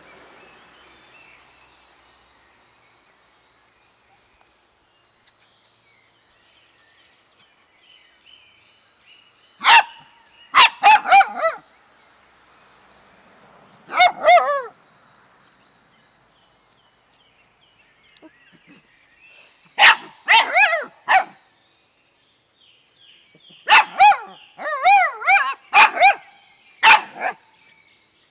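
A dachshund barking in clusters of one to four short, sharp barks, starting about ten seconds in, with pauses of several seconds between clusters and the longest run near the end. Faint bird chirps are heard in the gaps.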